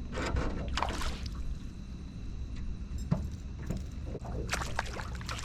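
Water splashing and sloshing at the side of a small fishing boat, with a steady low hum underneath; the splashing swells about a second in and again near the end.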